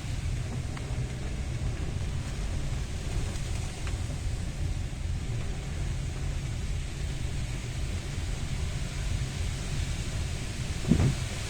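Hurricane-force wind blowing hard: a steady low rumble with hiss, the gusts buffeting the microphone. Near the end there is a brief louder surge.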